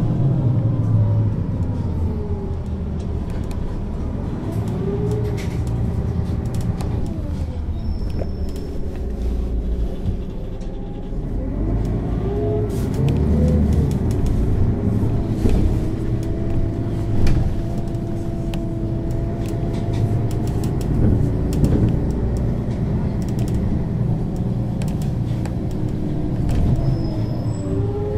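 Mercedes-Benz O 530 G Citaro articulated bus engine and ZF automatic gearbox under way, the engine pitch rising and then dropping several times as the bus accelerates and shifts, with a steady stretch in the middle and light rattles throughout.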